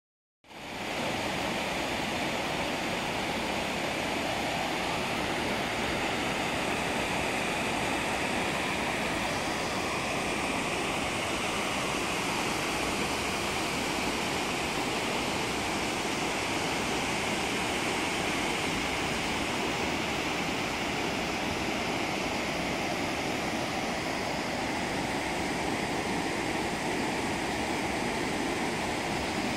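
Waterfall rushing steadily, several streams of water pouring down a rock cliff into a river below; the sound comes up in the first half second and then holds even.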